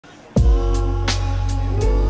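Background music with a deep bass and a steady beat, starting about a third of a second in.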